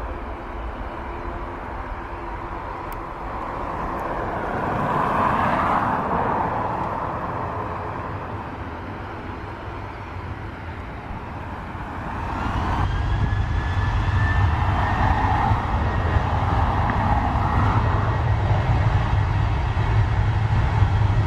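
Jet engines of a Boeing 737-800 running with a steady roar that swells and fades, then about twelve seconds in spooling up with a rising whine and a louder, deep rumble.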